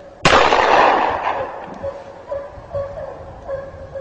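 A single gunshot about a quarter second in, echoing away over about a second. Behind it a hunting hound bays steadily on the hare's trail, short yelps about twice a second.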